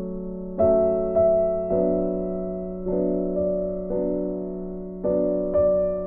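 Slow background piano music: single notes and chords struck roughly once a second, each fading away, over a steady low held tone.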